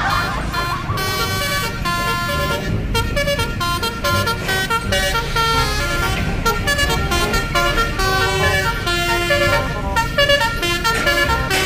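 Multi-tone 'telolet' horn on a truck playing a quick tune, its notes changing every fraction of a second, over a steady low engine rumble.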